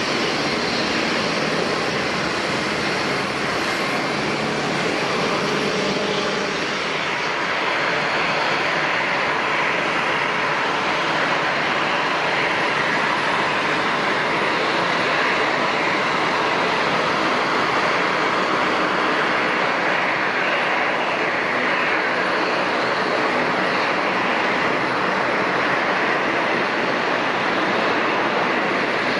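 Jet airliner engines running, a steady rushing noise that grows slightly louder about eight seconds in.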